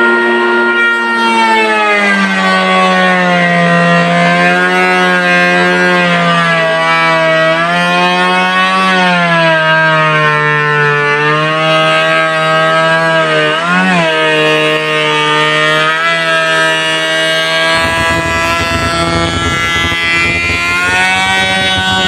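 Modified wood planer running, its motor hum dropping in pitch about two seconds in and wavering up and down as it labours under load from the wood being fed through. A low rough rumble joins near the end.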